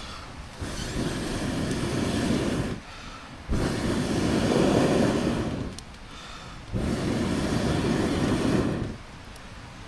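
A person blowing hard into a small titanium wood stove to get the fire going: three long breaths of rushing air, each about two seconds, with short pauses between them.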